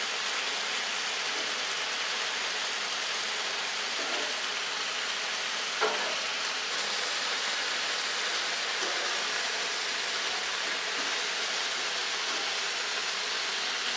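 Bacon strips sizzling steadily on a Blackstone steel flat-top griddle, with a brief tap of metal tongs about six seconds in.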